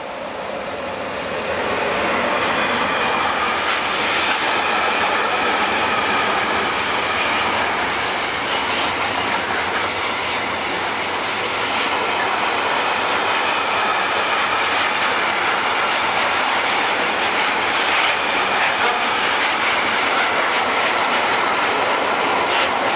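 Container freight train passing close by behind a class 187 Traxx 3 electric locomotive: the steady rolling noise of the wagons' wheels on the rails. It grows louder over the first two seconds, then holds steady as the wagons go by.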